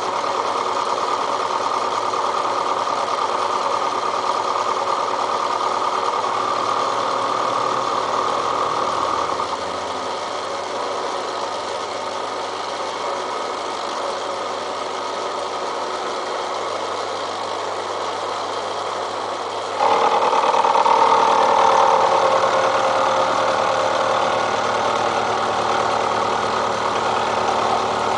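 Milling machine running with its cutter skimming the steel of a railroad-track anvil. The sound drops slightly about ten seconds in, then gets suddenly louder and harsher about twenty seconds in.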